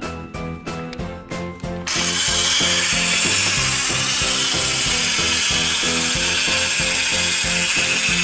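Motorised plastic toy amusement park, a Pororo Ferris wheel and car lift, running with a loud, steady ratcheting whir of plastic gears that starts about two seconds in, over background music.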